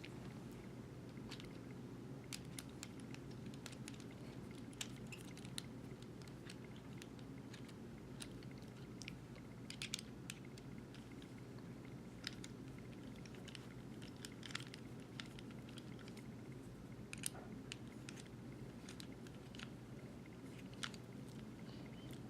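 Faint, irregular small metallic clicks and ticks as a 5/32 Allen wrench works machine screws out of the cam housing plate of a Wicked Edge WE 130 knife sharpener, over a low steady hum.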